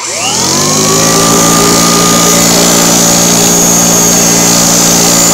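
1972 Kirby Classic 1CR vacuum cleaner switched on, its motor winding up with a rising whine over about a second and then running loud and steady. It carries a rattle from the headlight cap vibrating against the belt lifter, which the owner thinks is a loose headlight cap.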